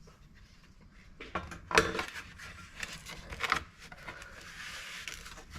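Plastic trim parts being handled and fitted together by hand: a few sharp knocks and clatters about a second in, near two seconds and midway, with rubbing between.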